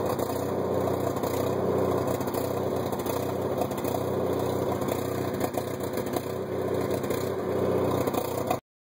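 Kohler RV generator set's engine running steadily at constant speed. The owner is not sure it runs as it should and wonders whether it needs a carburettor tune-up.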